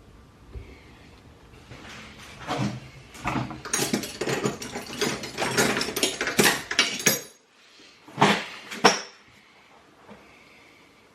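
Small metal parts clinking and scraping as a new piston ring is worked onto a two-stroke piston by hand. A dense run of clicks and scrapes lasts about five seconds, followed by two sharp clicks.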